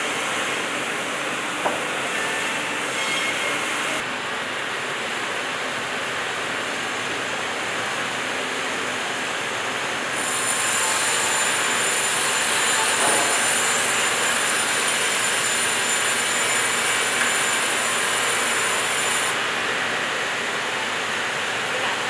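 Band resaw running steadily among sawmill machinery, with a short knock a couple of seconds in. About ten seconds in the blade cuts into a teak plank, adding a louder, high-pitched whine that lasts about nine seconds and then stops.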